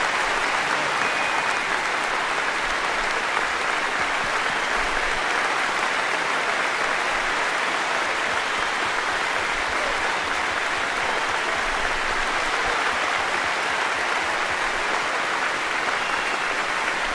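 Large audience applauding steadily, a dense, continuous wash of clapping.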